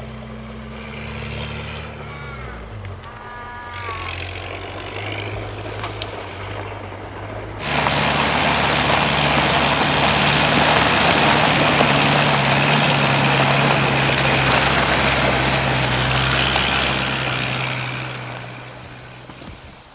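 Four-wheel-drive vehicle's engine running as it drives over a rough outback track, moderately loud at first. About eight seconds in it suddenly becomes loud and close, tyres crunching over loose rock along with the engine, and it fades away near the end.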